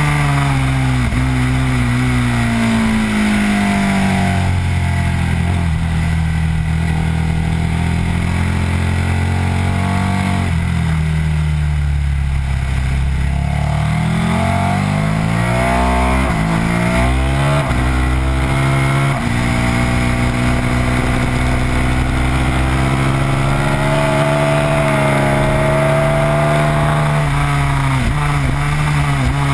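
Sport motorcycle's V-twin engine at full track pace, heard from on board: revs fall over the first few seconds as the bike slows for a corner, then climb steadily as it accelerates out, with a shift about two-thirds through and high revs on the following straight. Wind rushes on the microphone throughout.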